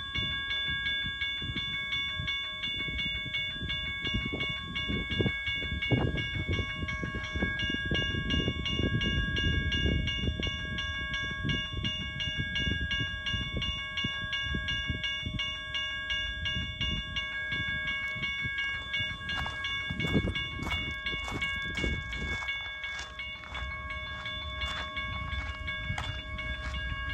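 Two GS Type 1 electronic railroad crossing bells ringing rapidly and continuously, over the low rumble of a train passing the crossing. The rumble eases near the end.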